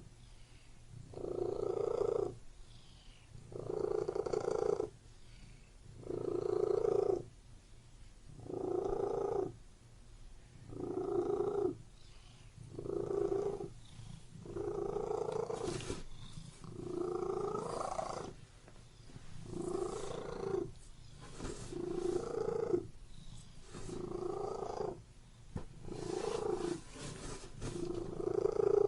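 Domestic cat purring steadily, swelling louder with each breath, about once every two seconds, over a constant low rumble. A few faint clicks come in the second half.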